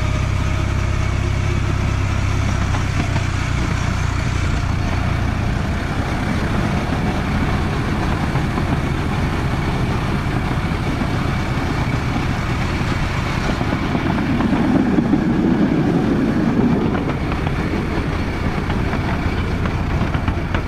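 Miniature ride-on railway locomotive running along the track, a steady engine drone with the train's rumble, louder for a couple of seconds about fifteen seconds in.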